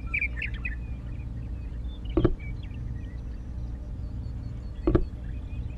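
A steady low rumble with faint, short high chirps over it, and two dull knocks about two and a half seconds apart.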